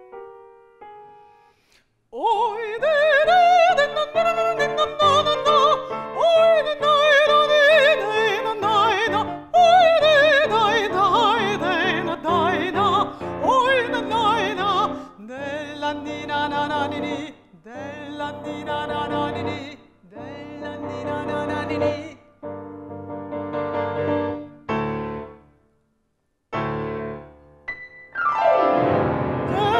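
Classical art song: a mezzo-soprano singing with vibrato to the accompaniment of a Petrof grand piano. The voice comes in about two seconds in after a short piano phrase, and the music stops briefly near the end before starting again.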